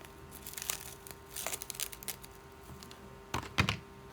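Packaging crinkling and rustling as a cosmetic product is unwrapped, in short bursts, with a couple of sharp clicks near the end.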